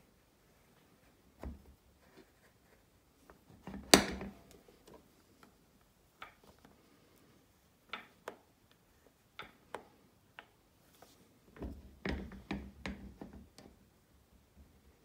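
Small sharp clicks and knocks of a watch case being handled and clamped in a steel lapping vise. A single loud click comes about four seconds in, and a quick cluster of knocks comes near the end.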